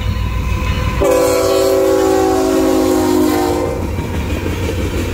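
Diesel freight locomotive, a CSX ET44AH, sounds one long blast on its multi-chime air horn about a second in, lasting about two and a half seconds, over the steady low rumble of its engine. After the horn stops, the train's rolling noise takes over as it passes through the crossing.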